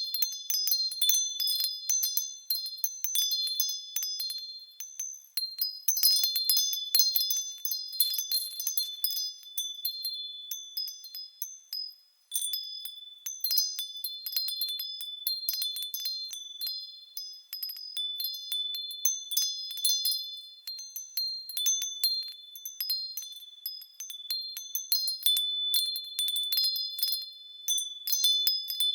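Japanese furin wind chime tinkling in the breeze: frequent clusters of high, bright strikes whose tones ring on, with a brief lull about twelve seconds in.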